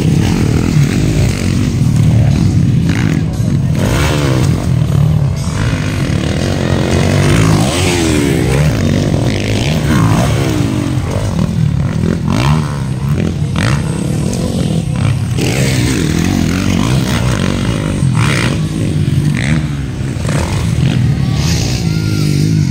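Motocross dirt bike engines racing around a dirt track, revving and dropping off again and again over a continuous engine drone.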